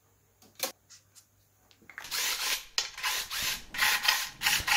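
Near silence with a couple of faint clicks, then about two seconds in a Makita 18 V cordless impact wrench starts running in short repeated bursts, undoing the oil sump bolts.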